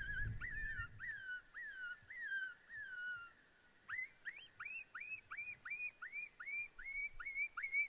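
Predator call sounding high coyote-style yips: about nine short falling yelps, a brief pause, then about a dozen quick rising yips, evenly spaced, calling to a hung-up coyote.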